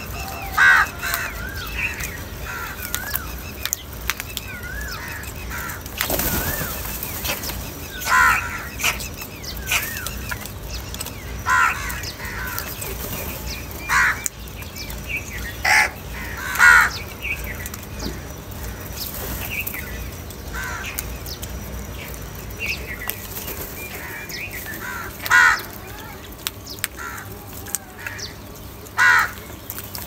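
A flock of house crows cawing in short, harsh calls at irregular intervals while feeding, with thinner wavering calls in the first few seconds. A brief rush of wing flapping comes about six seconds in.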